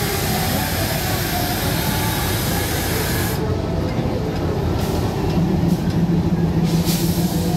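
WDM3D ALCO diesel-electric locomotive passing close by with its engine running, a steady low drone that grows louder about five seconds in as the locomotive comes alongside. A loud steady hiss sounds over roughly the first three seconds.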